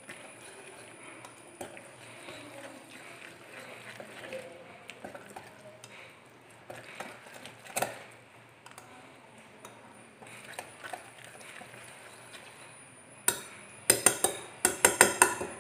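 Small wire whisk stirring thick semolina batter in a bowl, soft and scraping with the odd light tick. Near the end comes a quick run of sharp metal-on-bowl clinks as the whisk is knocked against the rim.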